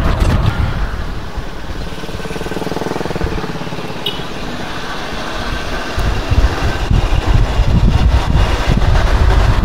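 Wind rumbling on the microphone of a moving electric bike, with road noise. It eases for a few seconds, then grows louder again about six seconds in as speed picks up.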